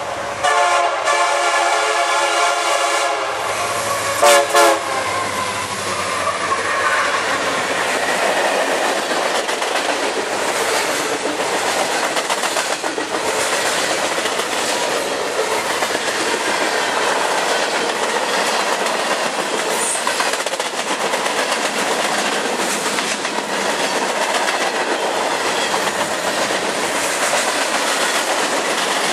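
Freight train horn sounding a long chord of about three seconds, then two short, louder blasts. After that comes the steady rumble and clickety-clack of freight cars (lumber-loaded flatcars and boxcars) rolling past close by.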